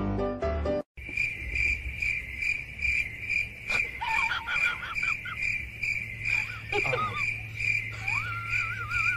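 Steady high-pitched chirping, about two and a half chirps a second, with a dog's wavering whines over it about halfway and near the end. Piano music cuts off in the first second.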